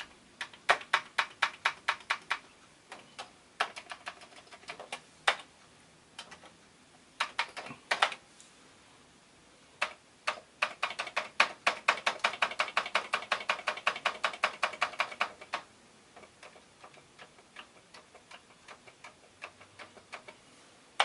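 Commodore 64 keyboard keys being pressed one after another, a sharp click with each stroke, as the freshly cleaned keyboard is tested key by key. A fast, even run of keystrokes comes from about ten seconds in to about fifteen seconds in, followed by lighter, quieter taps near the end.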